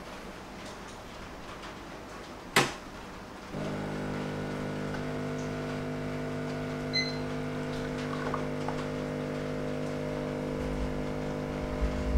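A sharp knock, then the Boxr home espresso machine's pump starts a few seconds in and hums steadily as it pushes hot water through the coffee puck to pull a shot.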